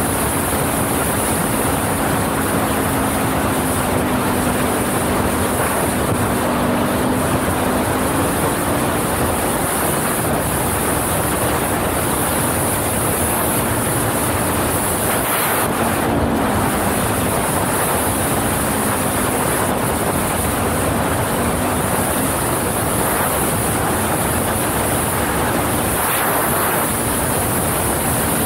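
Wind buffeting the microphone over the steady running of a Can-Am XMR 1000 ATV's V-twin engine at riding speed, the engine note dipping and rising a couple of times.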